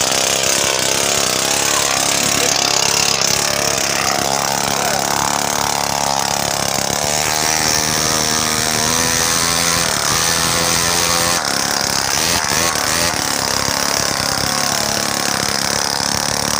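Small grass-cutter engine fitted to a home-built motorised bicycle, running continuously under way with its pitch wavering as the throttle changes.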